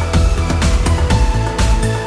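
Electronic background music with a steady beat, about two beats a second, over a sustained bass line.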